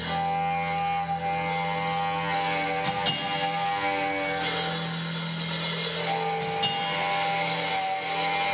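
Live rock band playing: electric guitars ring out long held chords over a drum kit with cymbals, the chord changing every few seconds.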